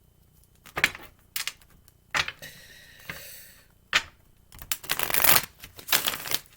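Tarot cards being handled and shuffled: scattered flicks and slaps of card stock, then a quick run of them about five seconds in.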